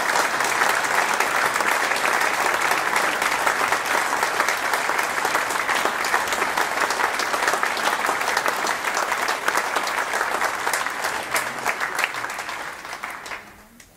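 Audience applauding steadily. The clapping thins and dies away over the last two seconds or so.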